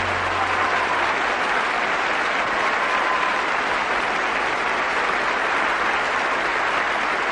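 A large audience applauding steadily at the end of a song, with the band's last held chord dying away within the first second.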